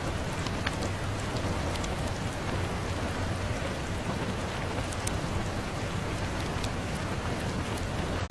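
Steady, dense rain with a low rumble underneath and scattered sharp ticks. The sound drops out for an instant right at the end.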